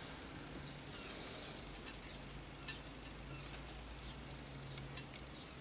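Faint handling noise: a few quiet clicks and light rubs as the endoscope probe and its cable are worked inside the air rifle's barrel and the handheld viewer is touched, over a faint low steady hum.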